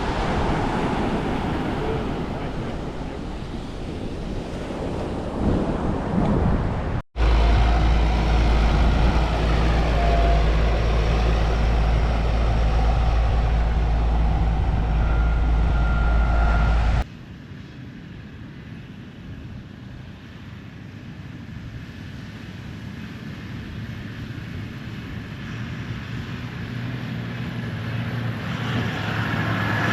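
Cars driving on a beach, with wind on the microphone. About seven seconds in the sound cuts to a loud, deep, steady rumble, which stops suddenly about ten seconds later. A quieter engine rumble follows and grows louder near the end.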